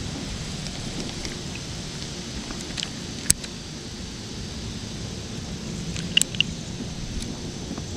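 Sharp clicks from a spinning reel being handled during a cast, one about three seconds in and a quick pair a little past six seconds, over a steady low outdoor rumble.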